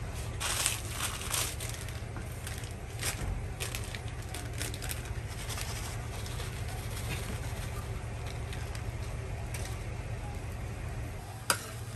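A crinkly packet of chips being crushed by hand and the crumbs scattered over a thin bread on a griddle, heard as short crackly rustles, most in the first couple of seconds and again around three and five seconds in, with a sharp click near the end. A steady low hum runs underneath.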